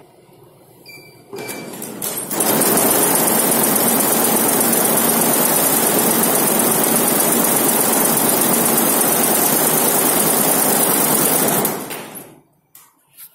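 Multi-head embroidery machine running a test stitch cycle to check its encoder: a fast, steady mechanical clatter that builds up over about a second, runs for about ten seconds and then stops, followed by two short clicks.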